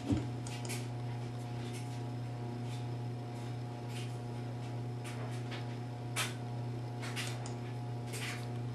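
A steady low electrical hum, with faint short clicks and ticks scattered irregularly over it.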